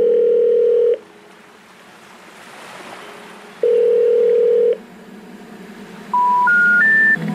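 Electronic beep tones: a steady tone held about a second, another about three and a half seconds in, then three short beeps stepping up in pitch near the end, with faint hiss between them.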